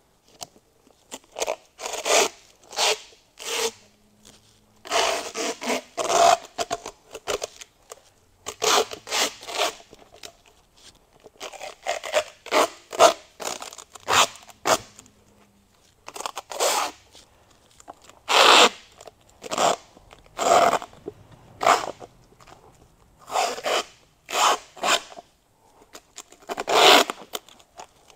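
Duct tape being pulled off the roll and wrapped around a stick: a couple dozen short ripping rasps at an uneven pace, with brief pauses between pulls.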